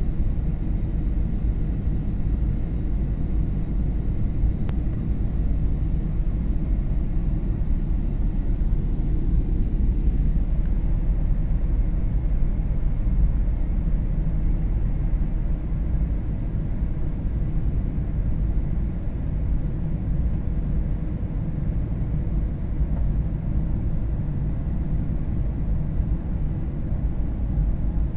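Jet airliner cabin noise heard from inside the cabin during descent: a steady, even, low rumble of engines and rushing air.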